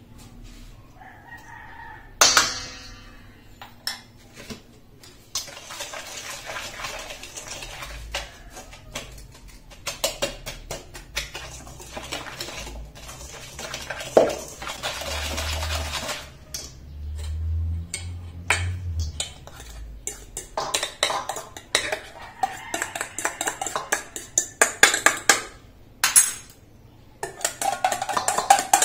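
Wire whisk clinking and scraping against a stainless steel bowl while mixing dry flour and brown sugar, in runs of quick strokes. A sharp clink comes about two seconds in, and the strokes turn into fast, even ticking near the end.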